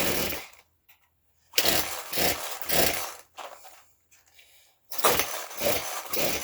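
Old Poulan two-stroke chainsaw being pull-started: the recoil starter is yanked twice and the engine cranks over for about a second and a half each time without catching. A third pull is just ending at the very start.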